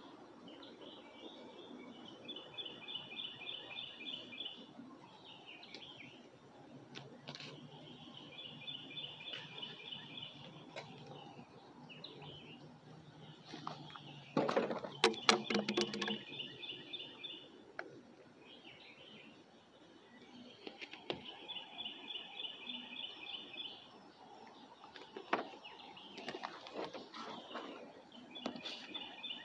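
A songbird singing the same short, fast trill over and over, about every six or seven seconds, with softer chirps between. About halfway through there is a brief, louder burst of clattering noise.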